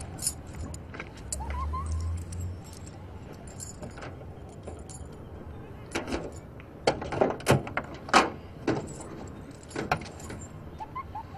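Car keys jangling and working the trunk lock, then a run of sharp clicks and knocks from about six to ten seconds in as the trunk latch releases and the lid is raised.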